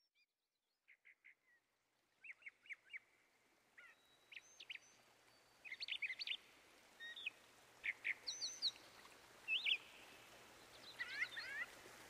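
Parrots calling: short, shrill notes that sweep sharply up and down in pitch, often in quick runs of three or four. The calls start faint and grow louder over the first few seconds, over a faint background hiss.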